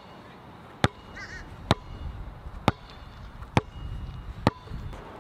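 Basketball being dribbled on an outdoor asphalt court: five sharp bounces, a little under a second apart. A short bird call is heard about a second in.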